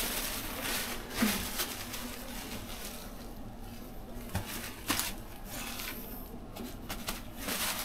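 Paper towel rustling and crinkling in nitrile-gloved hands as it is wiped across skin, with a few sharp clicks along the way.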